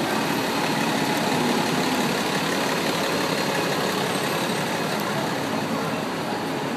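Steady engine noise of a double-decker bus idling at the curb, over busy city street noise.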